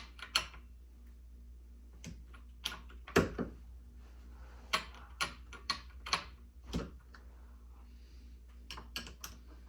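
Scattered sharp metallic clicks and taps, about a dozen at irregular intervals, from hand tools and a chainsaw's bar and chain being handled while the chain tension is adjusted.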